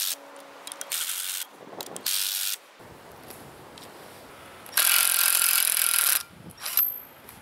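Cordless drill with a socket running in short spurts while it tightens the spring compressor bolts on a car's front strut. Near the end it runs once for about a second and a half, undoing the strut's top nut.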